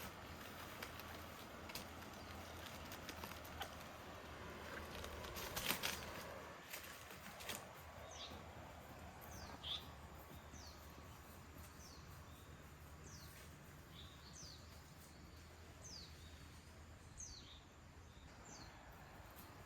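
Quiet outdoor ambience with a few light knocks and rustles in the first seconds. From about eight seconds in, a bird gives a run of short chirps, each one sliding downward, repeated irregularly about once a second.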